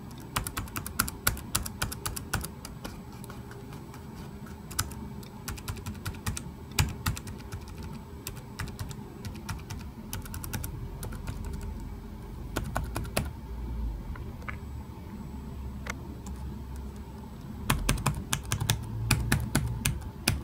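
Keys of an EPSON Direct Endeavor NY40S laptop keyboard being pressed one at a time and in quick runs, each a short sharp click, with a couple of sparser pauses. Near the end comes a fast, dense run of presses on the keys around O and L, keys whose stroke sounds slightly different and rattlier than the rest.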